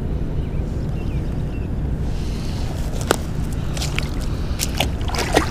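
A smallmouth bass being released back into a river: a few short splashes and slaps at the water's edge in the second half. Under them runs a steady low background rumble.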